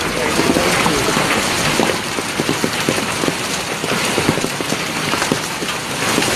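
Hail falling on a paved street, a dense, steady run of small clicking impacts.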